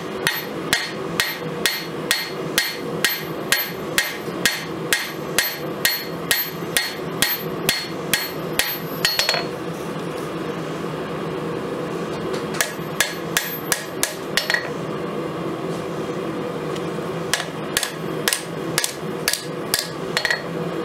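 Hand hammer forging a red-hot Damascus steel blade blank on an anvil: about two blows a second, each with a bright ring. The blows come in three runs, pausing about nine seconds in and again near fifteen seconds, over a steady low drone.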